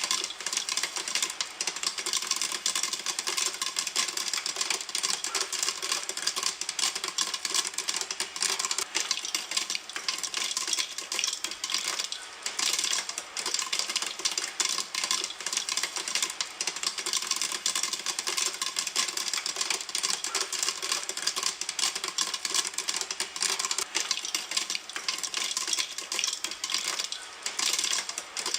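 Popcorn popping in a pan: many sharp pops in quick, irregular succession, without letup.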